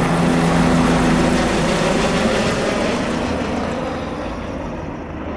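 Bell 407 helicopter flying away after takeoff: its Rolls-Royce 250-C47 turboshaft and four-blade rotor give a steady low hum that grows fainter and duller through the second half.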